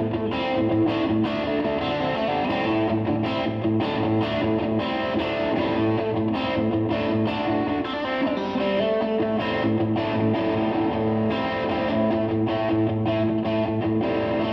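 Intro music played on a distorted electric guitar, with chords struck in a steady rhythm.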